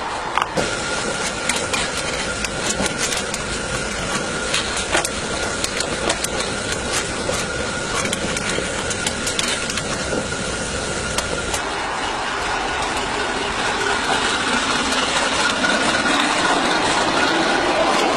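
Small coal-fired steam locomotive working, with hissing steam and repeated sharp clanks and clicks from its motion. The hiss swells louder over the last few seconds.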